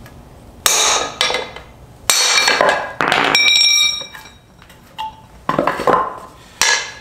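Hammer driving a brass drift bar against the press-fit spacer sleeve in a 68RFE transmission's aluminum extension housing, knocking it out. There are several sharp metallic blows, and one about three seconds in rings on briefly.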